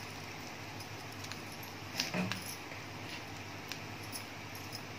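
Perforated steel spatula scraping and clinking against a stainless steel pan while stirring grated coconut with fried dals. There are a few light clicks and a louder clink about two seconds in, over a steady low hum.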